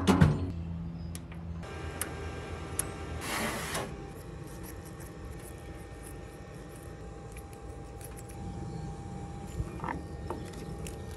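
Pellet grill lid shutting with a clank at the start, then a steady low hum with a faint steady tone and scattered light clicks.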